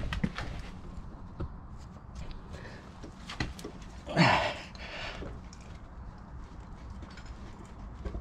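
Handling noises from a motorcycle rear wheel being manoeuvred by hand onto the shaft-drive cush drive: scattered light knocks and clicks, with one louder, longer noise about four seconds in.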